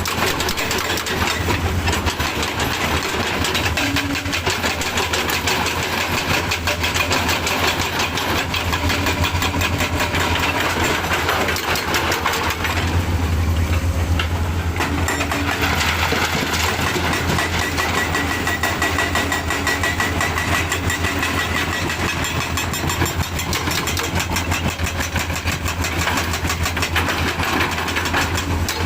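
Heavy diesel engine running continuously with a rapid clatter; about halfway through its low hum grows heavier for a couple of seconds.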